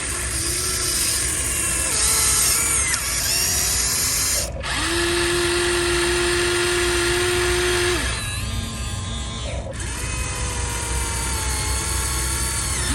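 Small electric gear motors of radio-controlled model construction machines whining as they drive, several at once. Each whine ramps up in pitch as it starts and falls as it stops. One steady whine is held for about three seconds in the middle.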